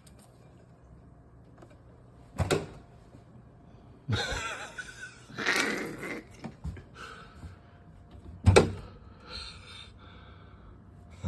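Refrigerator door being opened and contents shifted about inside: two sharp knocks, one about two seconds in and a louder one about eight seconds in, with rustling and clattering between them.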